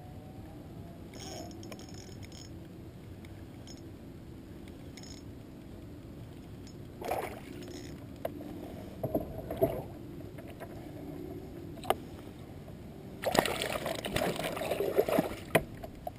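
A walleye reeled in on a spinning rod beside a kayak: a few knocks and splashes, then, near the end, a loud few seconds of splashing and thrashing water as the fish is lifted out.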